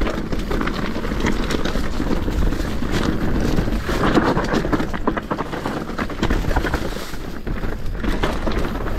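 Enduro mountain bike, a Commencal Meta SX v4, descending a rocky dirt singletrack: tyres crunching over gravel and stones with a constant clatter of rattles and knocks from the bike over the bumps. Low wind rumble on the chest-mounted camera's microphone runs underneath.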